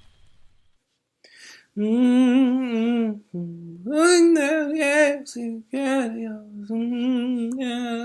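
A solo voice singing a slow melody with vibrato, in phrases broken by short pauses, starting about two seconds in.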